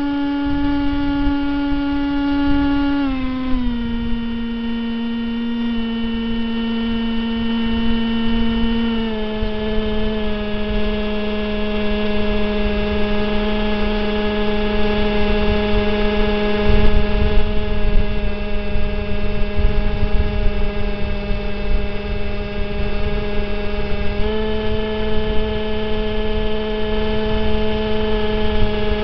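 RC plane's motor and propeller droning steadily, heard from the onboard camera. The pitch steps down twice in the first ten seconds and rises a little about 24 seconds in as the throttle changes, with low wind rumble on the microphone.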